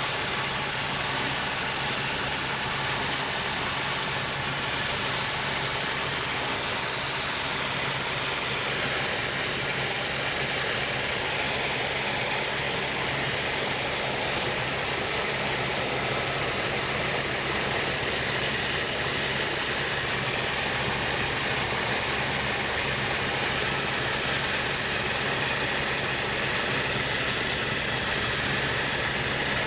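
Steady engine drone of a small sightseeing aircraft in flight, holding an even pitch with a constant low hum and a faint high whine.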